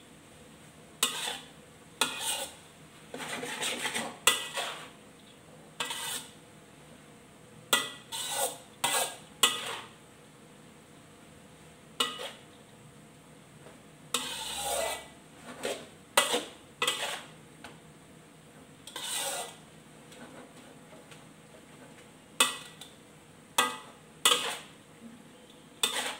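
Metal spatula scraping and clattering against a wok while stir-frying rice vermicelli, in irregular strokes and quick runs of strokes with short pauses between.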